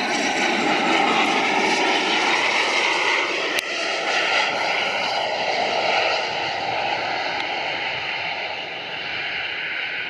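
Cessna Citation XLS business jet's twin Pratt & Whitney Canada PW545B turbofans running on landing approach, a steady jet noise that slowly fades over the second half as the jet moves off down the runway.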